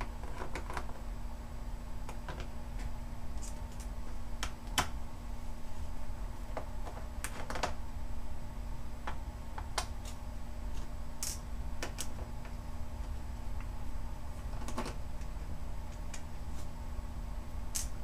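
Small screwdriver working the screws out of a laptop's bottom panel: irregular sharp clicks and light scrapes of metal tip on screw heads and the plastic case. A steady low hum runs underneath.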